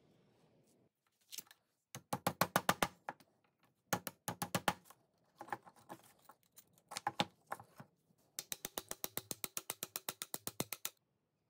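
Hammer tapping on a punch against the rusty steel tube of an antique air gun, in several short runs of light metallic strikes. Near the end comes a longer steady run of about eight taps a second.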